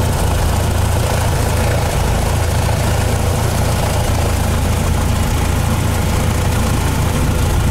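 Single piston engine and propeller of a high-wing light aircraft running steadily at high power as the plane takes off and climbs, heard inside the cabin as a loud, even drone.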